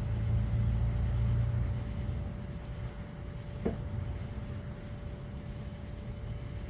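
Low rumble of distant thunder that dies away about two seconds in, leaving a faint steady hiss, with a single short click a little past halfway.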